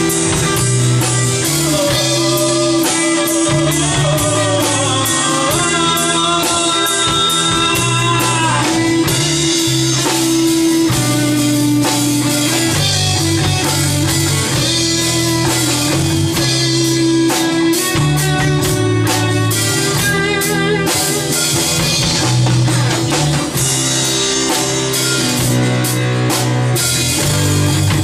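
Rock band playing in rehearsal, with guitars, bass and drum kit going steadily, and a bending lead melody line partway through.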